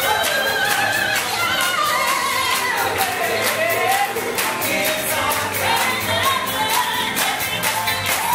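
Musical-theatre cast singing together over a band, with a sung melody that rises and falls over a steady, quick percussion beat.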